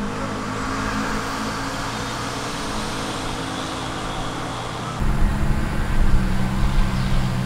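A steady low mechanical hum over outdoor background noise; about five seconds in it shifts abruptly to a louder, lower rumble.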